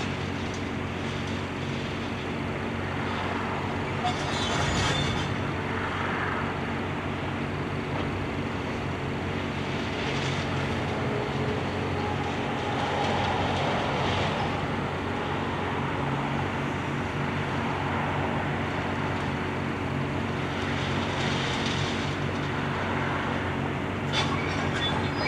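Hydraulic excavator's diesel engine running steadily under load, with scraping of broken concrete and steel rebar that comes and goes several times as the bridge deck is torn apart.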